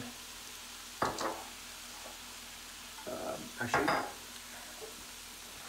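Low steady sizzle from a skillet of stir-fried chicken and vegetables left on the turned-off burner. Over it, a sharp kitchen knock comes about a second in and a short clatter between three and four seconds.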